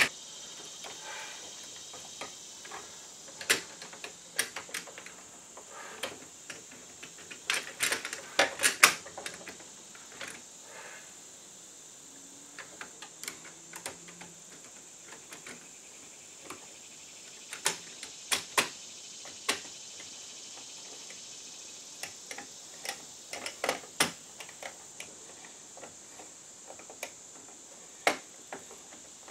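Scattered clicks, taps and scrapes of a screwdriver and copper wire working against the metal bus bar and steel box of a breaker panel as ground and neutral wires are fastened in. The clicks come in clusters, sharpest about eight to nine seconds in, again around eighteen seconds and near twenty-four seconds.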